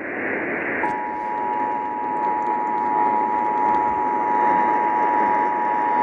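Emergency Alert System two-tone attention signal received on an AM radio, sounding for a Required Monthly Test. It starts about a second in and holds a steady, unbroken tone over AM static and hiss.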